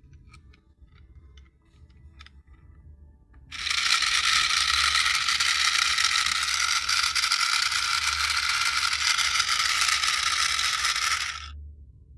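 A few light plastic clicks, then the small electric motors and plastic gearboxes of an RC toy tank running for about eight seconds with a steady buzzing gear rattle that cuts off sharply.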